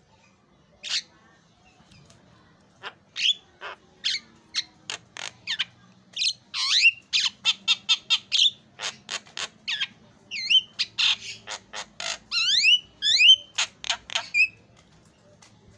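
Javan myna singing: a single call about a second in, then a long run of rapid, loud, harsh squawks and whistled notes, several a second, some sliding up or down in pitch. The run stops shortly before the end.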